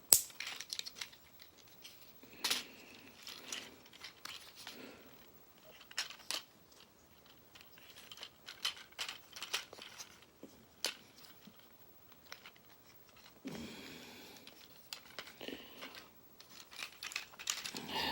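Plastic Transformers figure being handled and transformed: scattered sharp plastic clicks and snaps with soft rustling of the parts between them.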